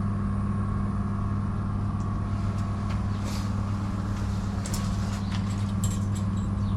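Engine idling steadily: a low, even hum, with a few light clicks and taps in the second half.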